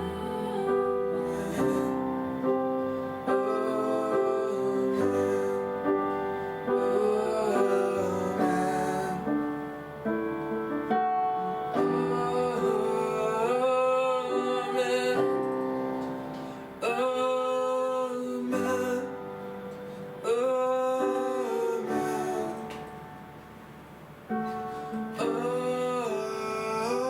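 Slow worship music: sustained keyboard chords, with a woman's voice singing over them. It dips quieter for a moment about two-thirds of the way through, then swells back.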